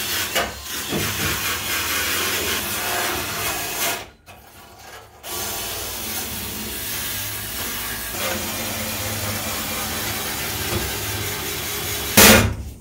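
Cordless drill spinning a wire brush wheel against the painted steel of a car's radiator core support: a steady scrubbing grind as it scuffs off old chipped paint and rust before repainting. It stops for about a second around four seconds in, then starts again, with a brief louder burst near the end.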